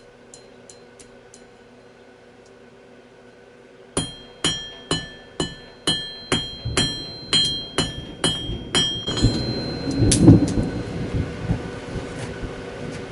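Hammer strikes on metal at an anvil, about a dozen blows at two to three a second, getting quicker, each leaving a ringing tone. Then a rumble builds to a deep boom about ten seconds in, the loudest sound here.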